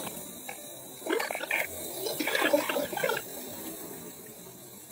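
Gulping a drink from a can: a few irregular swallowing and liquid sounds over about two seconds, then quieter.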